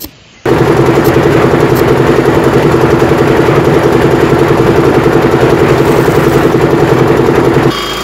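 Engine running steadily with a fast, even pulse. It starts abruptly about half a second in and cuts off abruptly near the end.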